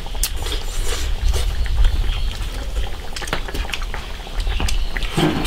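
Two people eating from bowls of spicy broth: wet slurping and chewing with frequent small clicks of chopsticks against the bowls, over a low steady rumble.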